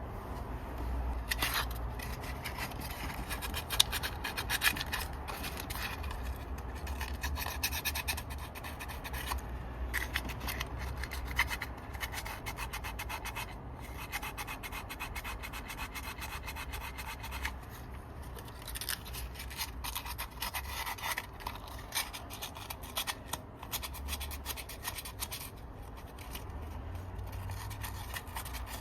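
Continuous rubbing and scratching, full of fine rapid clicks, over a low rumble.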